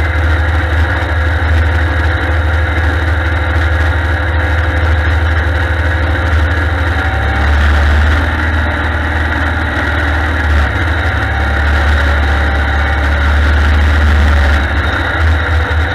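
Allis-Chalmers 160 tractor's three-cylinder Perkins diesel engine running steadily under way, heard close up from the tractor itself. The level swells slightly about halfway through and again near the end.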